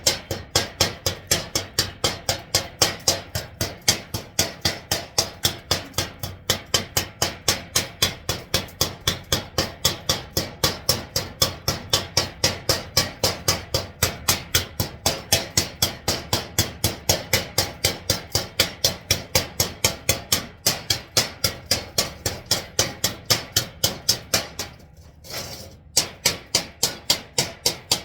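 A chipping hammer striking the slag on stick welds on a steel plate in rapid, even blows, about three or four a second, each hit sharp and ringing. There is one short pause about 25 seconds in.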